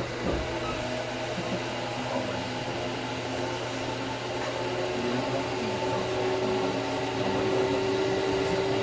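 Running noise inside an electric commuter train carriage: a steady hum with a few held motor tones, growing gradually louder over the last few seconds.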